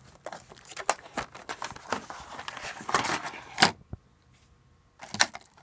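Cardboard retail box and clear plastic packaging tray of a wireless network card being opened and handled by hand: rustling and crinkling with many sharp clicks, a quiet second near the end, then a few more clicks.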